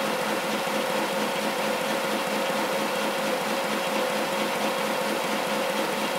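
Cold-set web offset press running at speed: a steady mechanical whir of rollers and paper web with a constant hum.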